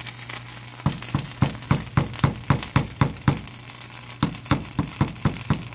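A spoon stirring and folding thick polenta in a cast iron pan, with a soft wet slap on each stroke, about four a second. The strokes start about a second in, stop for about a second midway, then pick up again.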